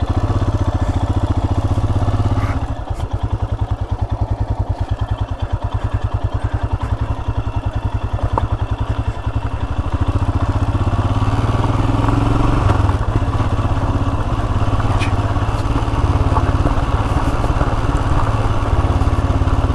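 Royal Enfield Himalayan's single-cylinder engine running steadily under way. It eases off briefly a couple of seconds in and pulls a little harder from about halfway.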